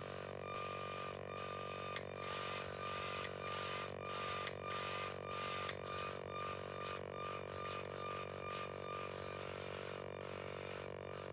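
Small electric servo motors of LEGO Mindstorms robots whirring in short repeated bursts as they swing the robot arms, over a steady hum.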